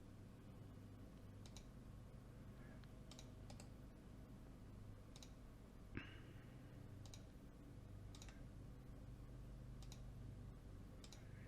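Near silence with faint, scattered clicks of a computer mouse, about a dozen at irregular intervals, one slightly louder about six seconds in, over a low steady room hum.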